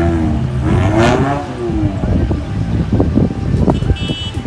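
Maruti Suzuki Gypsy engines running as the 4x4s pull slowly across a dirt lot. A man's raised voice calls out over them in the first second or so.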